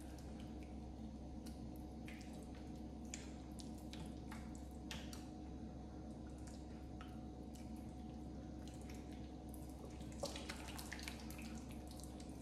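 Soft, wet squelches and small clicks of hands squeezing and mixing thick hung yogurt with mustard oil in a glass bowl, a cluster of them near the end, over a faint steady low hum.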